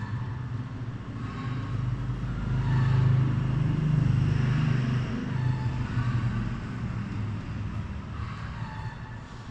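Low rumble of a motor vehicle engine that swells to its loudest about three to four seconds in, then eases off.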